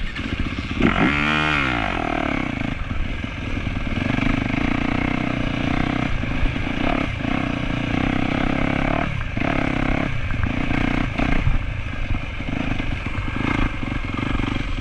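Yamaha YZ250F dirt bike's 250cc four-stroke single-cylinder engine under way, with a quick rev up and back down about a second in. It then runs at a steady throttle, with several brief drops in the engine note.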